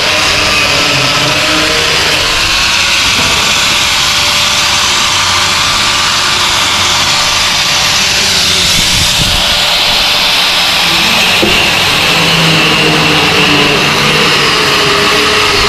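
Electric drill running steadily under load, cutting into the jammed metal lock of a roof-mounted jerry can.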